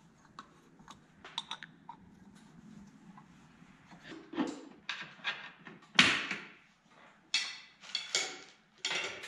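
Hand tools and metal parts clinking and knocking on the cast top of a Bridgeport mill head as its upper bearing plate is worked loose. Light scattered clicks give way to several louder clunks and rattles in the second half, the loudest about six seconds in.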